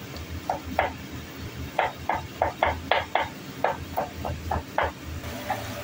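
Kitchen knife chopping garlic on a cutting board: a run of short sharp knocks, a couple at first, then about four a second, stopping near the end.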